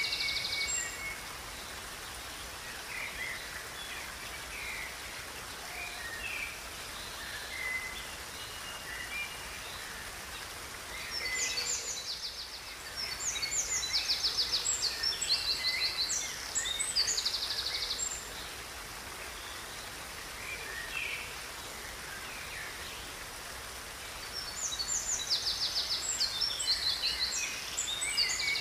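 Songbirds singing over a steady rush of running river water: two long bouts of rapid, high, repeated notes, one starting about a third of the way in and another near the end, with scattered fainter calls between.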